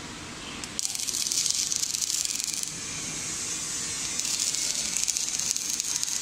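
A robot welding torch's arc crackling and hissing on steel scaffolding parts; it strikes up suddenly about a second in, eases a little midway as the torch moves, then runs strongly again.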